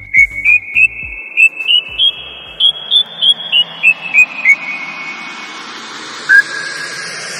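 Electronic music transition: a run of short, high whistle-like notes steps up and then back down, over a noise sweep that rises steadily in pitch and builds toward a drop.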